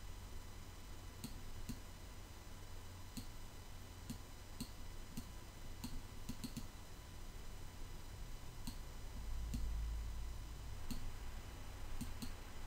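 Faint, scattered clicks of a computer mouse, about a dozen at uneven intervals and some in quick pairs, over a low steady hum.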